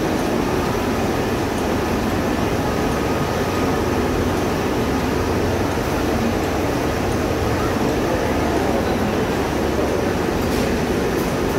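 Tea-factory leaf-processing machinery running: a steady, unbroken mechanical din from the belt-driven machines in the hall.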